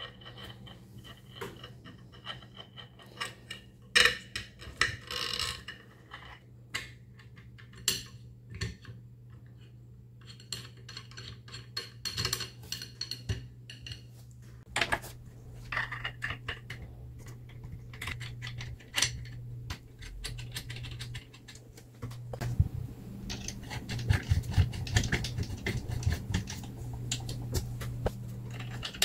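Irregular small metal clicks, taps and scrapes of screws and aluminium extrusion parts being handled and fitted as the X-axis rail of a Two Trees TTS-10 Pro laser engraver is fastened to its frame. A low steady hum runs underneath.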